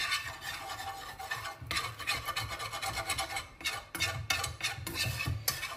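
A whisk scraping and stirring in a pan in quick, repeated strokes, working flour into the duck juices and loosening the browned bits stuck to the bottom.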